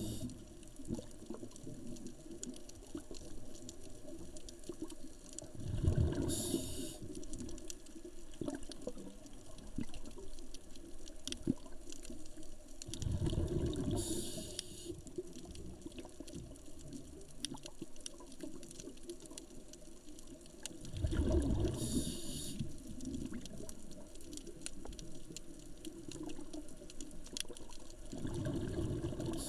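Scuba diver's breathing heard underwater: a bubbling rush of exhaled air about every seven to eight seconds, each ending in a short high hiss from the regulator. Faint scattered clicks run between the breaths.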